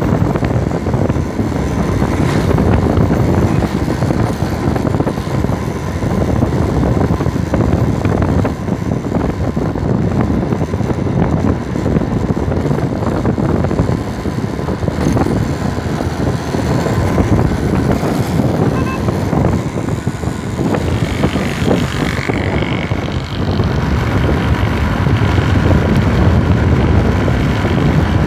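Honda motorcycle engine running steadily while the bike rides along a road, mixed with wind noise on the microphone.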